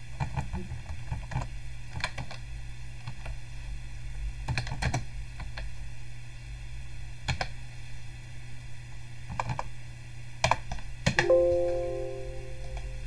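Typing on a computer keyboard: scattered short runs of keystroke clicks with pauses between them. About eleven seconds in, a short computer alert chime sounds and fades out over a second or so.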